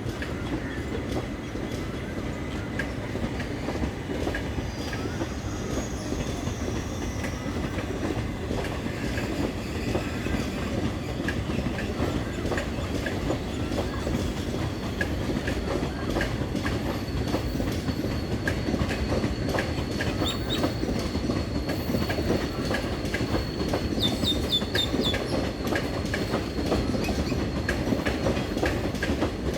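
Passenger train hauled by a WAP7 electric locomotive rolling past, with a steady rumble and wheels clicking over rail joints. A thin, high wheel squeal runs through the second half, with a few short squeaks.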